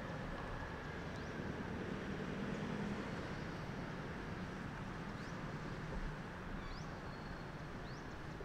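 Steady outdoor background noise, a low rumble with hiss, with a few faint short high chirps in the second half.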